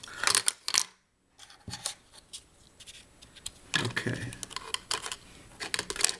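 Small hard objects being handled and set down on a desk: a series of irregular clicks, taps and rattles, with a brief complete dropout about a second in.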